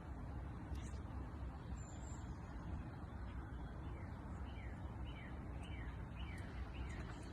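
Faint outdoor background rumble, with a bird giving a run of five or six short falling chirps from about four seconds in.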